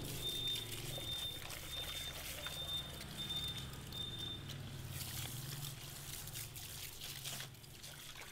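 Water spraying from a handheld salon shower head onto hair and running off into a shampoo basin while the hair is rinsed.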